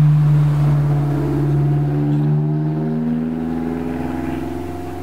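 A steady engine hum, slowly fading, its pitch drifting slightly.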